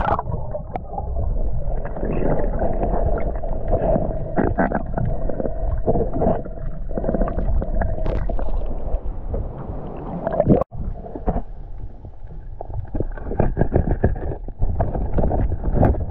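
Muffled underwater sound heard through a submerged camera: a steady rush of water with bubbling, and frequent short clicks and knocks. The sound cuts out for a moment about ten and a half seconds in.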